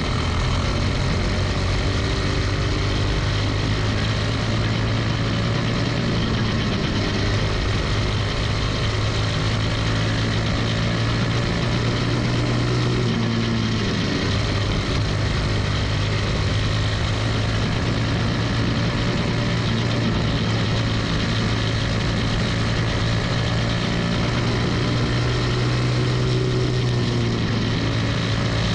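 Quarter midget's single-cylinder Briggs & Stratton Animal four-stroke engine running hard at racing speed, heard from the driver's seat with other cars' engines alongside. The engine note stays steady and dips briefly about halfway through.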